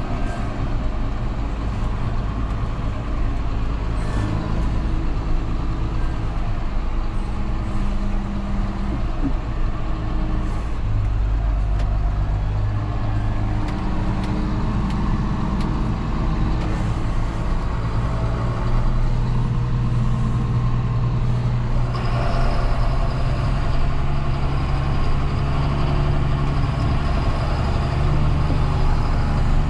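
John Deere 6930 tractor's six-cylinder turbo diesel engine running steadily, its note shifting in pitch several times. About two-thirds of the way through, the engine note rises and a high whine joins it.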